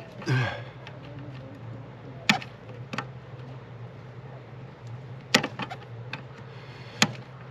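Sharp plastic clicks and knocks, about five spaced a second or more apart, from hands working at the electrical plug connectors on a Mercedes EGR valve to unclip them, over a steady low hum.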